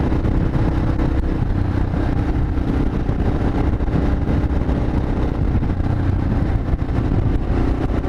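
Yamaha XT 600E's single-cylinder engine running steadily at cruising speed under a rush of wind noise.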